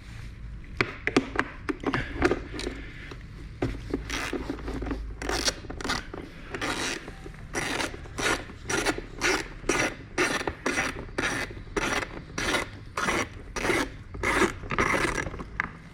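Socket ratchet being worked back and forth on a small panel bolt, each backswing a short rasping run of pawl clicks, about two strokes a second.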